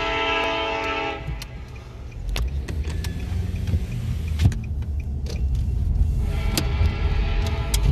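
BNSF locomotive air horn sounding a steady chord that cuts off about a second in, leaving the low rumble of the car being driven, heard from inside the cabin, with scattered light clicks. The horn begins again faintly near the end.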